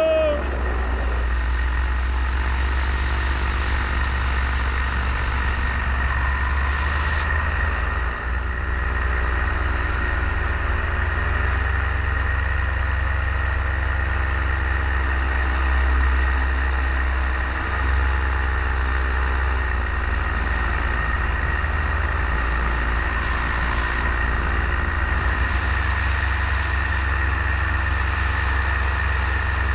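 Paramotor engine and propeller running steadily in flight, heard close up from the harness: a deep steady drone with a thin high whine above it. The pitch dips slightly about a third of the way in and comes back up a little later.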